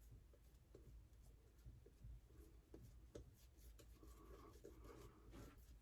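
Faint, irregular scratching and rubbing with light clicks: shaving gear working against the face, just above near silence.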